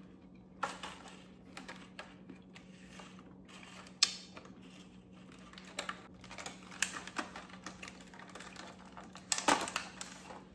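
Irregular clicks and rattles of hard candy-coated chocolate eggs in a clear plastic tub being handled, with a sharp click about four seconds in and a louder clatter near the end.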